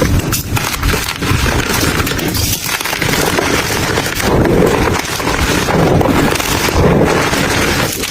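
Dry, crunchy crumbles being crushed and broken apart, a continuous dense crunching and crackling that swells a few times.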